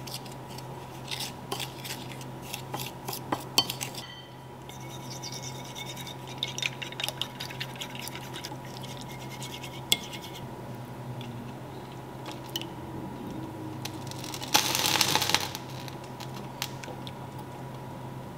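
Wooden fork scraping and clicking against a ceramic bowl while stirring a dry flour-and-spice mix, then quick repeated ticks as it beats egg batter in a second ceramic bowl. A loud rustle lasting about a second comes about two-thirds of the way through.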